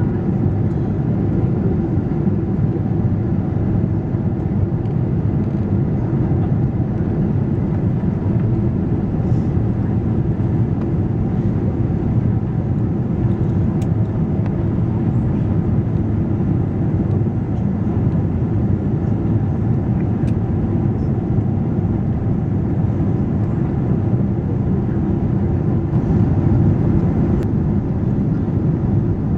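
Steady cabin noise of a Boeing 777-200ER in flight, heard from a window seat over the wing: the even roar of its GE90 engines and the airflow, unbroken throughout.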